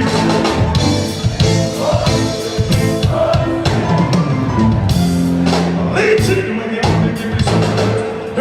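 Live reggae band playing, with drum kit and bass keeping a steady beat while a male vocalist sings over it.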